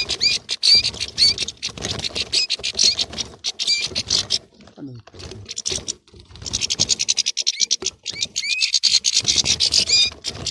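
A flock of European goldfinches twittering and squabbling: dense, rapid chirps and call notes that thin out briefly about halfway through, then pick up again.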